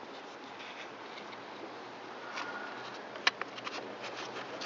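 Light handling noises and small plastic ticks as the trimmer's top engine cover is fitted over the engine housing, with one sharp click about three seconds in, over a faint steady hiss.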